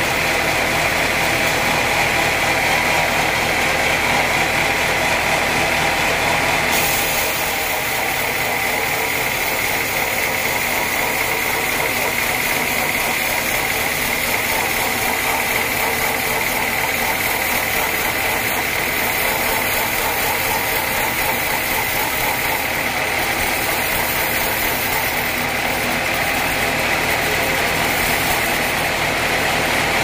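Bandsaw mill running steadily, its blade cutting lengthwise through a dense acacia wood block, with a constant high whine over the machine's drone. About seven seconds in the sound changes abruptly, growing brighter and thinner.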